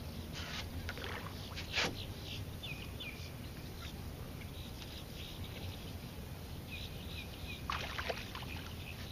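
A hooked largemouth bass thrashing and splashing at the water's surface beside a small fishing boat. A sharp splash or knock about two seconds in, and a burst of splashing near the end as the fish comes up to the boat.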